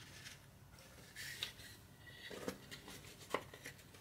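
Faint handling sounds of plywood parts being slotted together: a few light taps and short scrapes of wood on wood.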